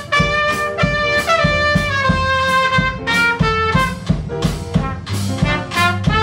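Live Dixieland jazz: a trumpet leads with a long note that steps down in pitch over the first few seconds, over a walking double bass and a drum kit keeping a steady beat. Near the end a trombone joins in.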